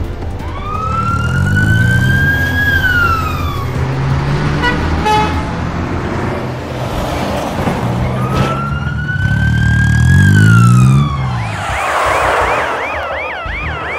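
Cartoon vehicle siren: two long wails that rise slowly and then fall, with vehicle engines revving underneath, then near the end a fast warbling police-car siren.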